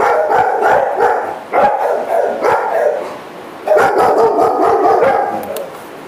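Several kennelled dogs barking over one another almost without a break, easing off briefly about halfway through.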